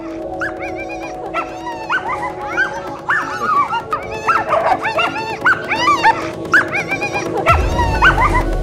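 Several harnessed sled dogs yipping and whining in many short, high, rising-and-falling calls, over background music with steady held notes.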